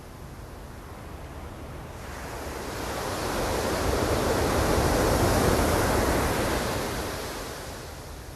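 Ocean surf: a single wave builds about two seconds in, breaks loudest midway, and washes back out near the end, over a steady low rumble.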